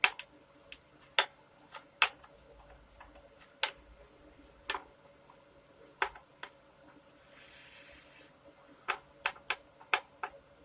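Fret rocker clicking as it is rocked across the frets of a Squier Stratocaster neck, irregular sharp ticks a second or so apart, with a quicker run of them near the end; the rocking means uneven, high frets, which the luthier finds at most places along the fretboard. A short scraping hiss comes about seven seconds in.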